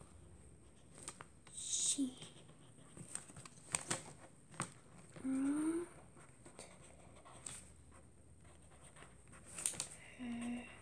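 Quiet pen-and-paper handling: light rustling of paper with a few small clicks and taps. A child's voice gives three short murmurs or hums, one rising in pitch about halfway through.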